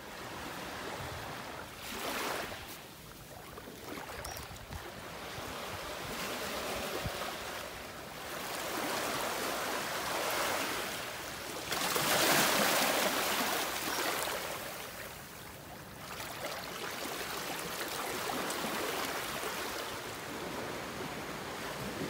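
Small sea waves lapping and washing up onto sand and around rocks at the shoreline, swelling and fading every few seconds and loudest about twelve seconds in.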